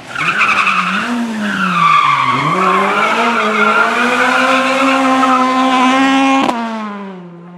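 Rally car engine under load, its pitch dipping and climbing, then held high for several seconds. About six and a half seconds in it cuts off sharply, and a quieter, lower engine note follows.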